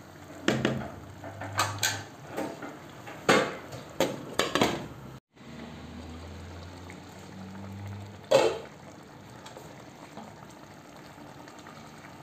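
A spatula knocking and scraping against a non-stick pan while stirring a simmering stew, with a handful of sharp clacks over the first five seconds. After a short break the stew simmers under a low steady hum, with one more clack about eight seconds in.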